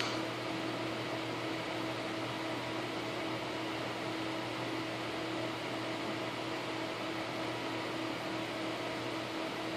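Desktop PC cooling fans running steadily at about half speed, an even whir with a low steady hum, while the graphics card is under full-load stress testing. A brief click right at the start.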